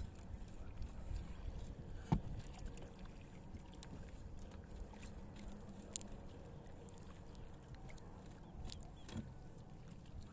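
Steady low rumble of wind and water around a small fishing boat at sea, with a few sharp knocks and clicks, the loudest about two seconds in.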